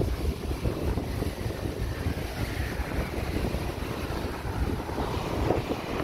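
Freight train of double-stacked shipping containers rolling past, a steady low rumble of wheels on the rails, with wind buffeting the microphone.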